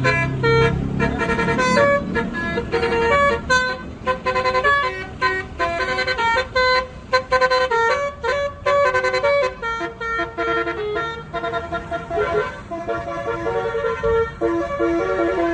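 Indonesian bus basuri (telolet) multi-tone horn playing a tune in quick, stepped notes, with a low rumble under the first couple of seconds.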